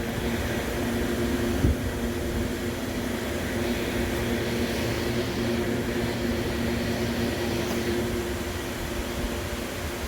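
Inverter-driven electric motor of a chicken rotisserie running steadily with a low hum, turning the spit. A single knock about a second and a half in.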